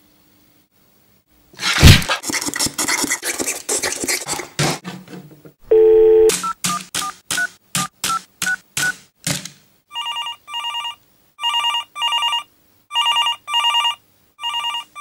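A loud thump and a few seconds of crackling noise, then a short low tone and a quick run of about nine keypad dialling beeps as a calculator's keys are pressed like a phone's. A telephone then rings in repeated double rings.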